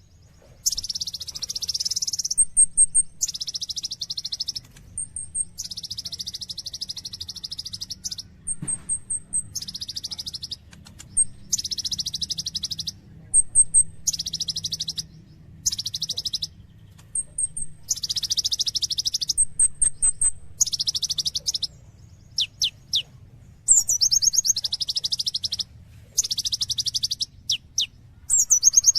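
Kolibri ninja sunbird singing without a break: high, fast trills about a second long, repeated with short pauses, mixed with brief high ticking notes and a few quick falling whistles. A faint low hum runs underneath.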